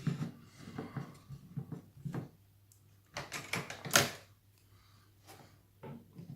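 Small clicks and knocks from a picked-open challenge lock and its picking tools being handled, with one sharp click about four seconds in.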